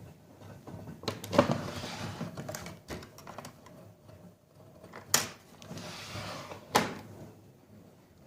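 Front-loading washing machine tumbling a load of bedding: stretches of swishing with three sharp knocks, the loudest about a second in, then two more about five and seven seconds in.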